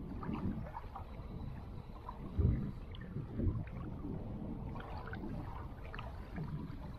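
Wind rumbling on the microphone beside choppy lake water, swelling in two short gusts about two and a half and three and a half seconds in, with faint scattered small clicks.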